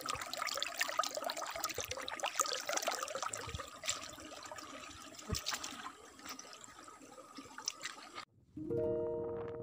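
Shallow stream trickling and splashing over rocks and stones. About eight seconds in it cuts off suddenly and piano music begins.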